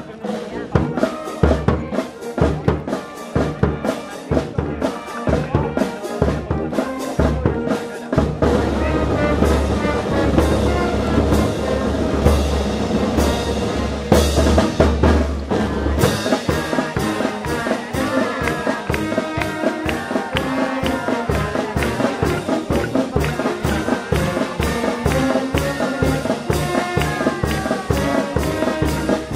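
Brass band music with drums, with a steady beat of sharp strikes, about three a second, in the second half.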